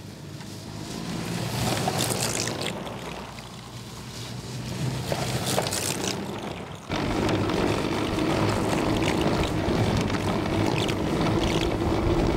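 Battery-electric snowmobiles passing along a snowy trail, their track and drive noise swelling and fading as each goes by. About seven seconds in, it switches to the sound from on board a moving sled: a louder, steady whir of track on snow with a constant hum from the electric drive.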